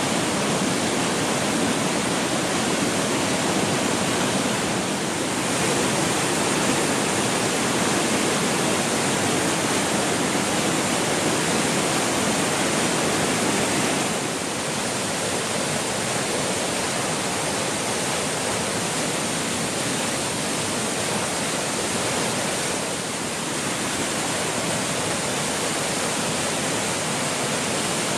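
A mountain waterfall's steady rush of falling water, changing slightly in tone a few times.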